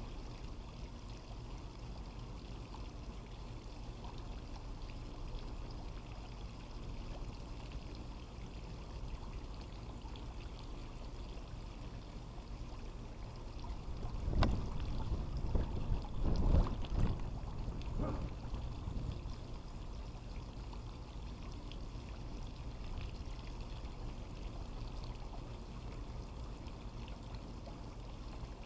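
Water pouring steadily, as from a pool's return jet or fountain. About halfway through, a louder burst of noise with a few knocks lasts a few seconds.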